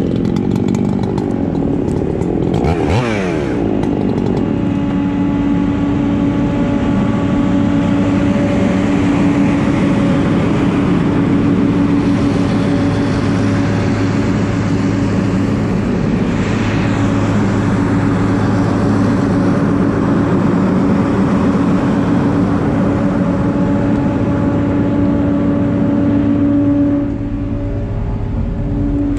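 An engine running steadily with a constant drone. About three seconds in, a higher engine note falls quickly in pitch, and near the end the sound drops a little in loudness.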